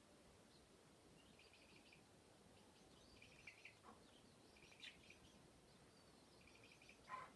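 Faint chicken calls: repeated high, chirping trills in several short bursts, a brief lower call about four seconds in and a louder call near the end.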